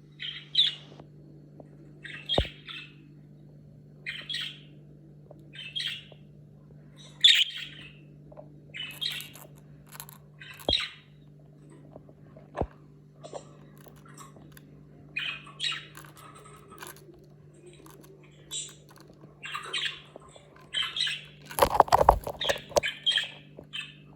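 Budgerigar chirping and squawking in short calls every second or two, more crowded toward the end, over a steady low hum. A few sharp clicks fall between the calls, and a loud rattling burst comes near the end.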